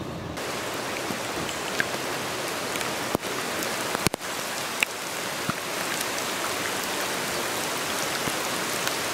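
Heavy rain pouring down steadily, with scattered sharp ticks of drops landing close by.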